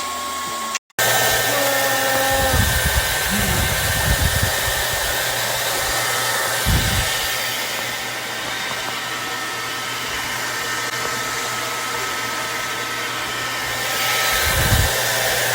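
Blow dryer running steadily, blowing warm air into a soft bonnet hood attachment worn over the head, with a few low thumps. The sound cuts out briefly about a second in.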